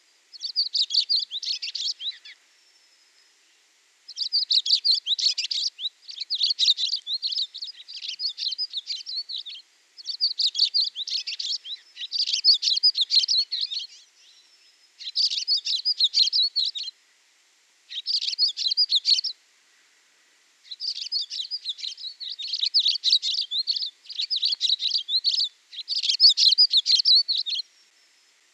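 A songbird singing phrase after phrase of quick, high twittering notes. Each phrase lasts one to two seconds, with short pauses between.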